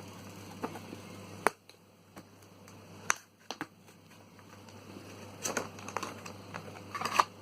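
Packaging being handled and opened: scattered sharp clicks and taps, with a short burst of rustling near the end.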